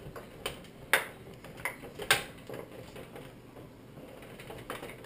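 Microwave door and keypad parts being handled during disassembly: scattered sharp clicks and taps of hard parts, several in the first two seconds and a few more near the end.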